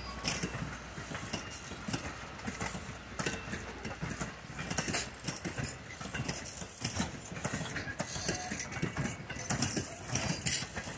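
A steady run of irregular short knocks and clicks, with no steady tone under them.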